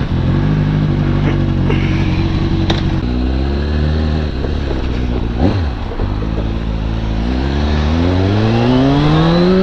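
600cc sportbike engine pulling away at low revs, its pitch stepping and dipping with throttle and gear changes, then rising steadily under acceleration over the last couple of seconds.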